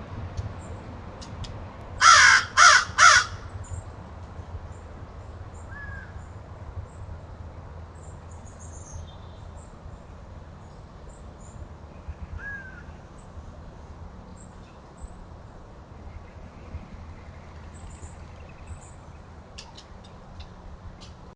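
A bird calling three times in quick succession about two seconds in, loud, then a few faint chirps from small birds over a steady low hum.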